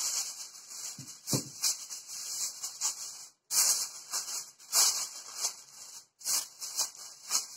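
Aluminium foil crinkling and rustling in irregular bursts as a sheet is spread over a glass baking dish and crimped around its rim, with a soft knock about a second in.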